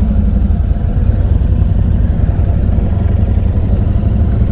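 Royal Enfield Continental GT650's parallel-twin engine running steadily as the motorcycle rolls slowly across an intersection.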